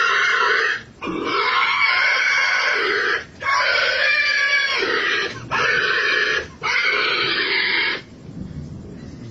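A man imitating an animal call with his voice, in five long, harsh calls with brief breaks between them, stopping abruptly about eight seconds in.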